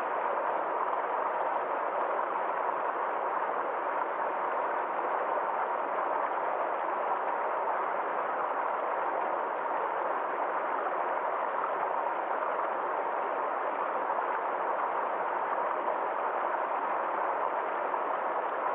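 Forest stream flowing steadily over a small waterfall, an even, unbroken sound of water.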